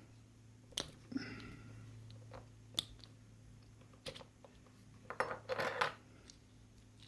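Small metal clicks and taps from handling the parts of a disassembled padlock, with a short cluster of rattling clicks about five seconds in.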